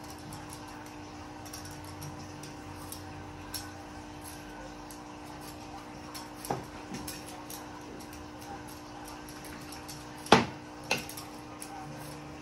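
Handheld vegetable peeler scraping peel off a cucumber in short strokes, with small clicks throughout. A few sharp clinks against a plate, the loudest about ten seconds in.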